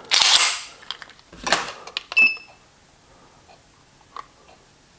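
The steel slide of a Coonan Arms .357 Magnum 1911 pistol being racked back and let run forward with a metallic scrape and snap, recocking the hammer for a trigger-pull measurement. This is followed about two seconds in by a click and a short electronic beep from a digital trigger pull gauge, then a faint click near the end.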